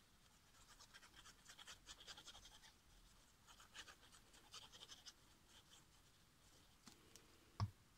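Faint scratching and rustling of paper being handled, in small clusters of ticks, then a single soft thump near the end.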